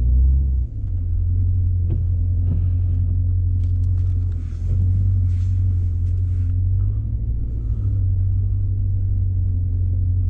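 Low, steady rumble of a car's engine and road noise heard from inside the cabin as the car turns around, with a brief dip in level about four and a half seconds in.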